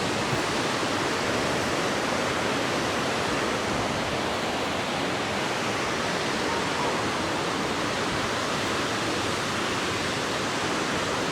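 Water churning as it pours out of an outlet in a dam: a steady, even rush.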